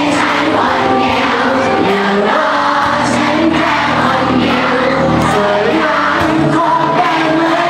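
A live rock band playing amplified in a large hall: a singer on a microphone over electric guitar, bass guitar, and drums with cymbals. The music plays steadily throughout.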